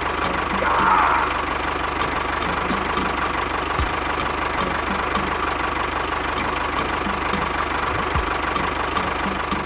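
A small engine running steadily at idle, with a low hum and an even ticking about three times a second.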